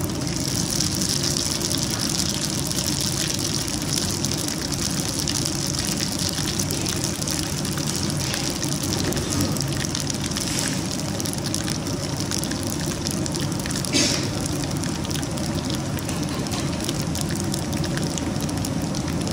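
Panch phoron and dried red chillies sizzling in hot mustard oil in a stainless steel pan, the sizzle brightest in the first few seconds after the seeds go in and then settling to a steady fry. A steady low rumble runs underneath, and there is one short click a bit past the middle.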